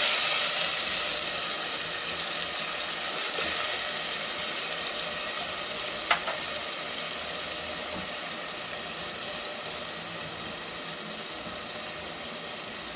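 Freshly added chopped onion, tomato and green chilli masala sizzling in hot oil in a metal pot. It is stirred with a ladle at first, and the sizzle slowly grows quieter. A single sharp clink comes about six seconds in.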